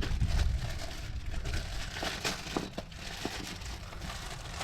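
Irregular crinkling and rustling with scattered light clicks, as of something being handled.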